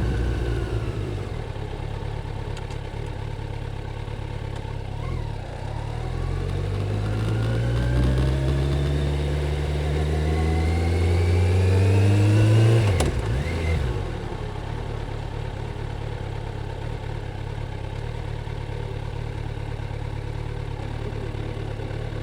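Stock Kawasaki Z900's inline-four engine through its standard exhaust: it eases off, then pulls up in a long steady rise in pitch. About thirteen seconds in the throttle shuts suddenly and the engine drops to a steady idle for the rest.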